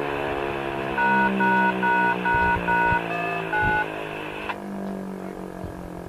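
A string of DTMF dual-tone beeps, five identical then a few different digits, such as siren activation tones heard over a radio. They sound over the low, many-toned wail of the Federal Signal Eclipse 8 electronic siren, which slowly falls in pitch.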